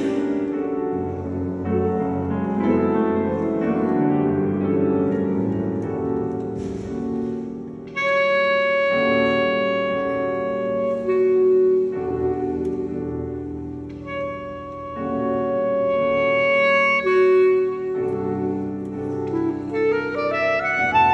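Clarinet and piano playing a classical sonatina. For the first several seconds there is a dense passage of quick notes. About eight seconds in, the clarinet holds long sustained notes over piano chords, and near the end it climbs in a rising run.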